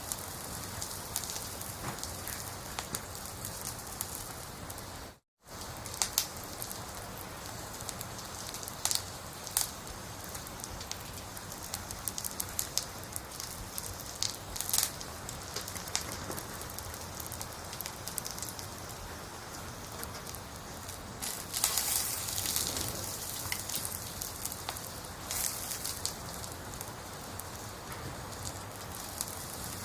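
Campfire burning: a steady hiss with sharp pops and crackles scattered throughout, louder for a couple of seconds about 22 seconds in. The sound cuts out for an instant about five seconds in.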